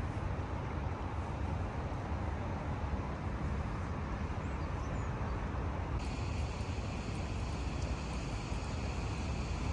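Steady outdoor background noise, a low rumble with a hiss over it, with no single event standing out; its tone changes abruptly about six seconds in.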